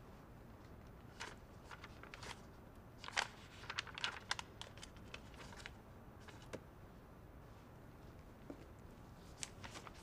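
Hushed room tone with scattered faint rustles and small clicks, thickest about three to four and a half seconds in.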